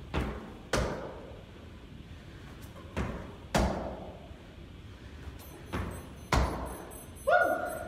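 Thuds of hands and feet landing on a rubber exercise mat during burpees, coming in pairs about half a second apart, three pairs roughly three seconds apart. Near the end a short pitched sound is the loudest thing.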